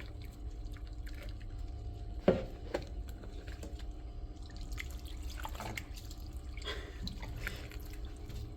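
Bathwater dripping and lightly splashing in a tub around a cat being bathed, with a sharper plink about two seconds in, over a low steady hum.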